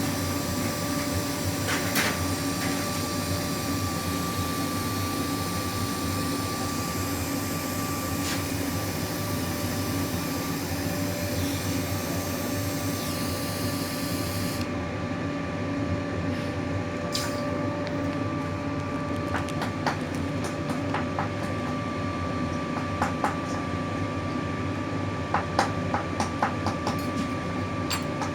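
Steady hum of a small workshop machine motor running, with a few light metal taps near the end.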